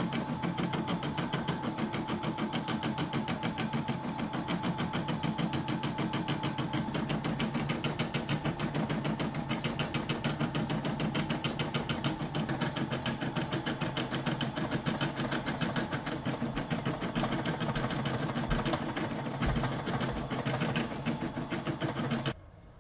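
Brother SE625 embroidery machine stitching a design, its needle running in a fast, even rhythm that stops suddenly near the end.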